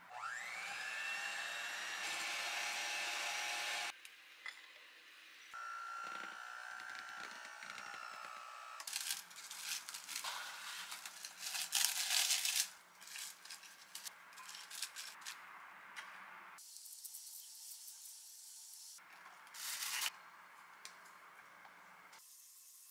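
An electric hand mixer whirs up to speed and runs steadily for about four seconds, then runs again for a few seconds at a steady pitch, whipping cream in a glass bowl. After that, plastic cling wrap crinkles as it is pressed into the bowl, followed by quieter handling sounds.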